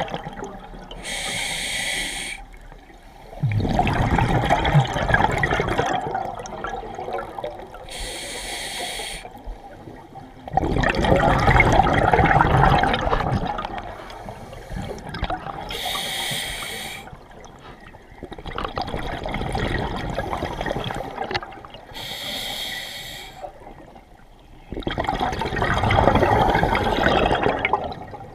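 A scuba diver breathing through an open-circuit regulator, four breaths in all. Each is a short hissing inhale followed by a longer, louder rush of exhaled bubbles.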